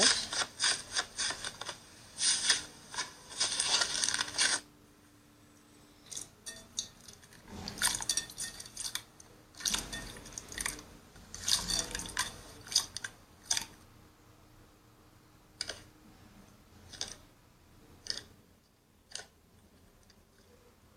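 Slime being squeezed and pressed in a satisfying-slime video, giving crisp crackling and clicking. The sound comes in a dense run of clicks for about the first four seconds, then in separate crackly bursts every second or so, with a faint hum behind.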